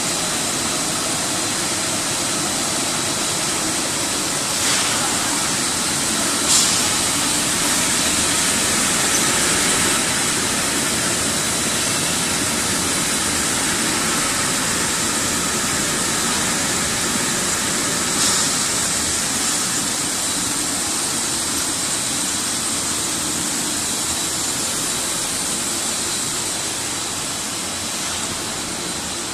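Steady machinery noise of a puffed rice snack extrusion line, with the twin-screw extruder and conveyors running. A thin, steady high whine sits over the noise, and a few brief clicks come through.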